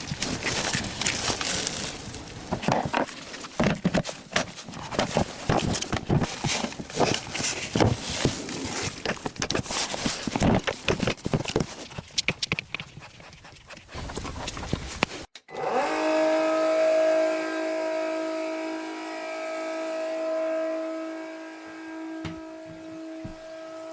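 Irregular knocks and clatter of handling for about fifteen seconds. Then a Milwaukee M18 cordless transfer pump's motor starts with a quick rising whine and runs at a steady pitch.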